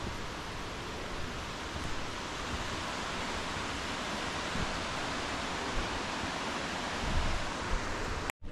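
Steady rush of running water from a mountain stream and its small cascades, a smooth, even hiss that cuts off abruptly near the end.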